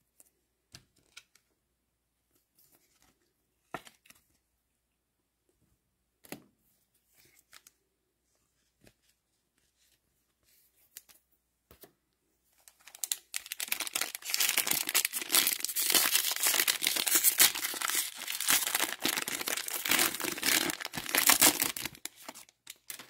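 Trading-card pack wrapper being torn open and crinkled: about ten seconds of dense crackling that starts a little under halfway through, after a stretch of quiet card handling with a few faint clicks.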